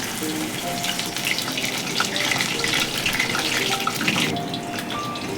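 Battered banana flower deep-frying in hot oil: a steady sizzle with many small crackles.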